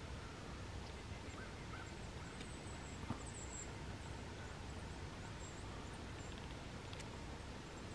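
Steady wind noise through the woods, with a few faint, short bird chirps in the first half and one soft click about three seconds in.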